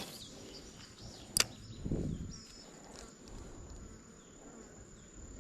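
Insects buzzing with a steady high hum, broken by one sharp click about a second and a half in and a brief low swish just after it.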